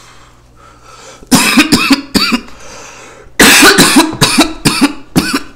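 A man coughing hard in two fits, one about a second in and a longer one from about halfway through.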